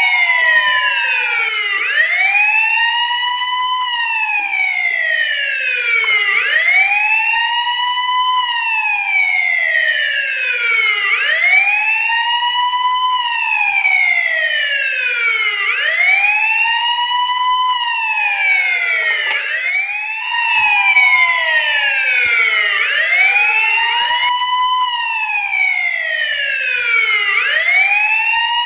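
Police car wail siren rising and falling in pitch, one cycle about every four and a half seconds: a quick rise, then a slower fall. Other sweeps overlap it out of step.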